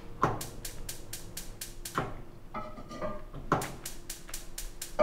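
Gas range burner's spark igniter clicking rapidly and evenly as the knob is held on, with no flame catching because no gas is reaching the burner. Under it a musical score lands a heavier beat about every second and a half.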